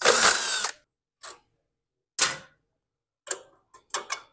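A DeWalt cordless impact driver runs for under a second at the start, spinning out a 10mm bolt from the snow blower engine's metal shielding. Then come several short clicks and knocks, the loudest about two seconds in, as the loosened parts are handled.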